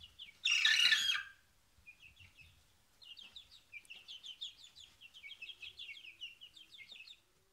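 A young Fayoumi cockerel, about three and a half weeks old, gives a short crow about half a second in, lasting under a second: the loudest sound here. From about three seconds on, the chicks peep in a quick run of short, downward-sliding chirps.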